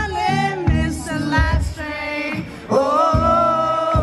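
Male singer singing live into a microphone over a band backing, recorded from the front of the crowd. In the second half he holds one long note.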